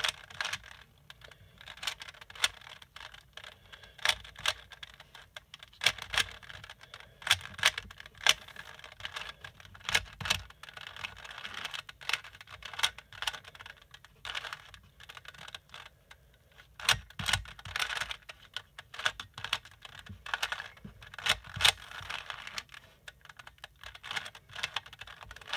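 3x3 Rubik's cube being turned over and over, its plastic layers clicking and clacking in quick irregular strokes as a move sequence is repeated until the cube comes back to solved.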